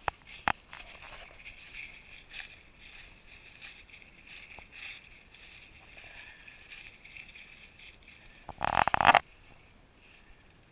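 Dry fallen leaves rustling and crackling as they are walked and scampered through, with one short, loud burst of sound about eight and a half seconds in.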